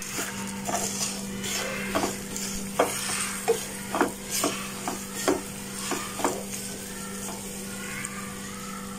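A wooden spatula stirring and scraping lumpy, half-melted sugar around a non-stick frying pan as it is melted down for caramel, with a run of sharp knocks of the spatula against the pan through the middle. A steady low hum sits underneath.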